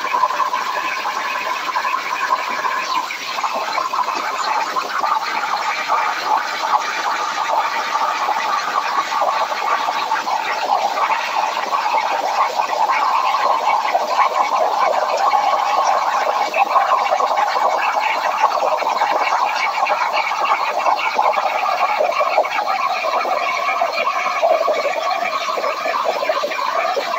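CNC plasma table's torch cutting steel plate: the plasma arc and its air stream make a steady, rough hiss as the torch travels along the cut.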